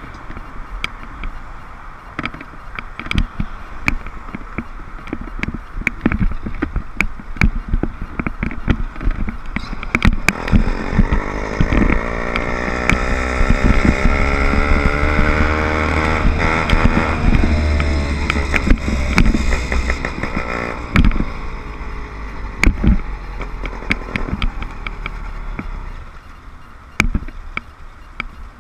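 Small 60/80cc motorized-bicycle engine running under way. Its pitch climbs from about ten seconds in, then falls back around twenty seconds. Many short knocks and rattles run through it.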